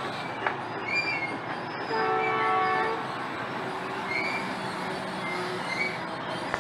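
Passenger coaches of a Pakistan Railways train rolling past close by, wheels running over the rails with high squeals that come and go. A train horn sounds for about a second, about two seconds in, the loudest sound.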